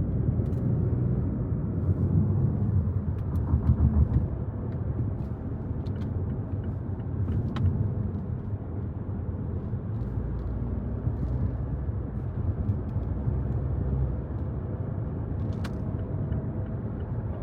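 Low, steady rumble of a car on the move, swelling louder a couple of seconds in, with a few faint clicks.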